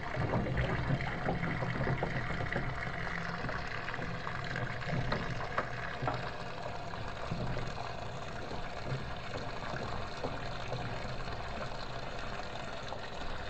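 Water running into the tub of a Little Swan top-loading pulsator washing machine as it fills, with a steady low hum underneath.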